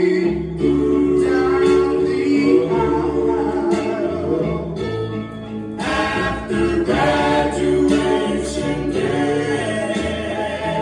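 Recorded song: a vocal group singing in close harmony, with sustained held notes and no clear lyric words.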